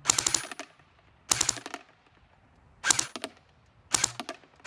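Battery-powered Kalashnikov AK-47 airsoft rifle firing four short bursts on full auto, each a quick rattle of sharp clicks from the gearbox, about a second apart.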